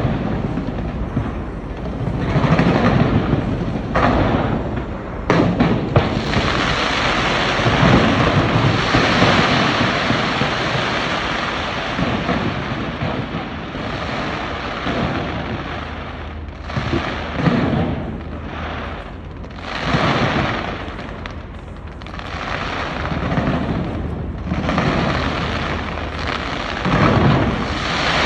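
Large aerial fireworks going off in quick succession: deep booms that rumble like thunder, a few sharp cracks about four to six seconds in, and a dense rushing noise filling the gaps between bursts.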